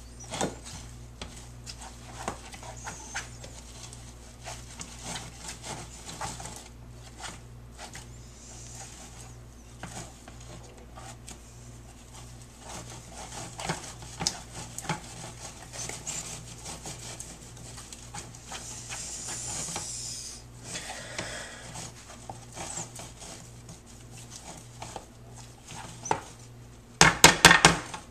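A wooden spoon mashing and stirring a thick, doughy bait mixture in a plastic tub: irregular scraping and soft knocks against the tub. Near the end comes a quick run of loud, sharp raps.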